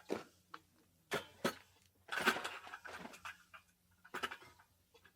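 A series of irregular sharp knocks and scuffs, with a louder cluster about two seconds in, over a faint steady low hum.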